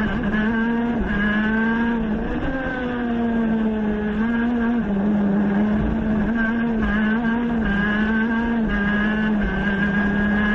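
A race car's high-revving engine heard from on board, held near the top of its rev range through a run of corners. Its note stays steady and dips and rises slightly as the throttle and gears change.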